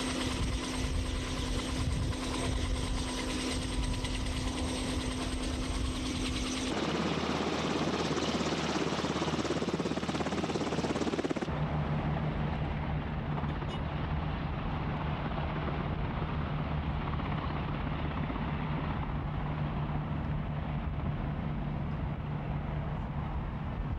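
Military aircraft engines running steadily, heard across three cut-together shots. At first there is a steady whine with clear high tones. About seven seconds in it turns to a rougher rush, and from about eleven seconds on it becomes a lower steady drone.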